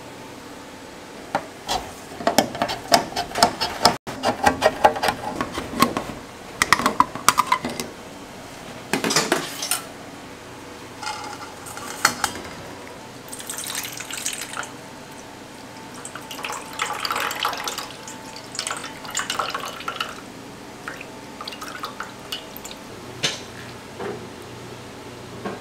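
Sugar poured into a stainless steel bowl, then a metal ladle clinking and scraping in a tin can of wet pickle relish as it is scooped out. Rapid clicks and clinks come first, then scattered wet scooping sounds.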